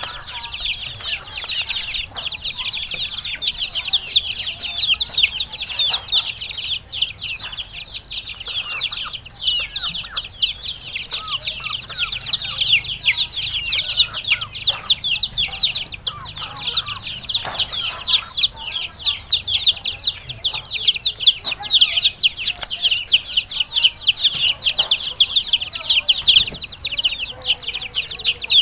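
Many chicks peeping nonstop in high, rapid, falling chirps, with a few sharp knocks now and then.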